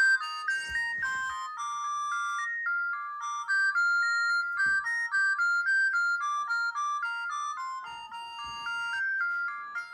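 Vodafone 227 mobile phone playing a ringtone through its small speaker: a quick, high melody of short stepped notes that repeats its phrases, with almost no bass.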